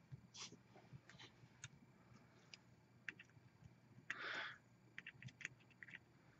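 Faint scattered clicks of a small steel hex key fitting into and turning the set screws on an aluminium paintball air-tank regulator. A short soft rush of noise comes a little after four seconds in.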